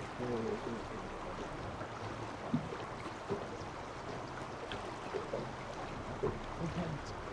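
Steady wash of flowing river water, with faint distant voices now and then.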